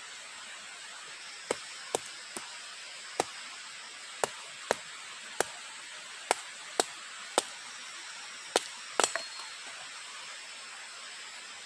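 Wood fire crackling: about a dozen sharp, irregular pops over a steady hiss, with a quick cluster of pops about nine seconds in.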